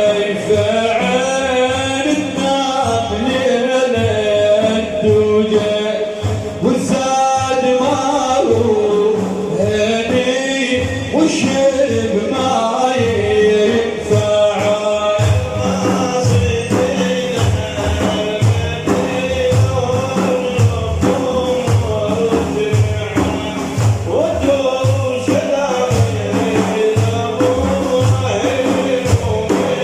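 Male voice singing a manqaba, a sung praise of the Prophet, with a wavering, ornamented melody. Frame drums of the tambourine kind come in and beat a steady rhythm through the second half.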